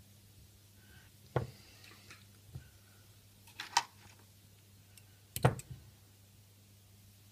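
Small hand tools and tattoo-machine parts handled and set down on a workbench: four separate clicks and knocks, a bright clink near the middle and the loudest knock about five and a half seconds in.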